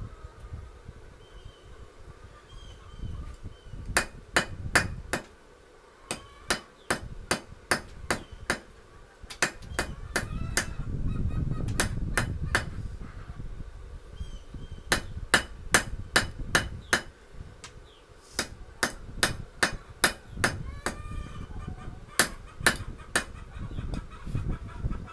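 Hand hammer striking a hot steel lawnmower blade on an anvil, forging it into a knife: runs of several quick blows, about two to three a second, with short pauses between runs. Poultry call faintly between the runs.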